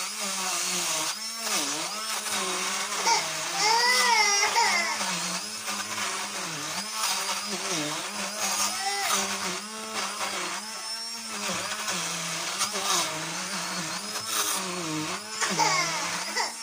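Stick blender motor running in a thick butter-and-sugar mixture, its pitch repeatedly dipping and recovering under load.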